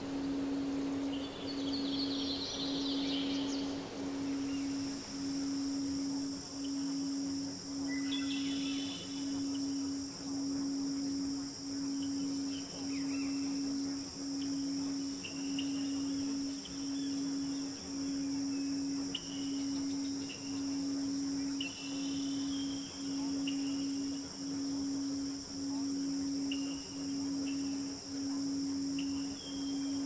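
A low steady tone pulsing on and off about once a second, the program's frequency track, laid over a nature recording: a soft rushing hiss for the first few seconds, then a steady high cricket chorus with scattered short bird chirps.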